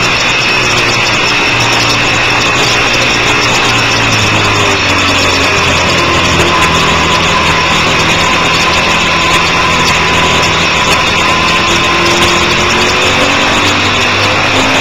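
Twin-cylinder sport motorcycle engine running hard at track speed, heard onboard over heavy wind noise. The engine note drops in pitch about four seconds in and climbs again near the end.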